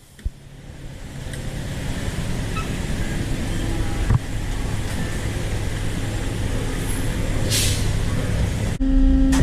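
Smart SL15 CNC lathe running, a steady mechanical hum with a couple of clicks and a short hiss about two-thirds through. Near the end it switches abruptly to a louder, steady, higher-pitched hum.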